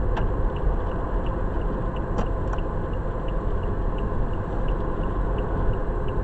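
Steady tyre and engine noise inside a car cabin cruising at about 70 km/h, with the turn-signal indicator ticking about three times a second.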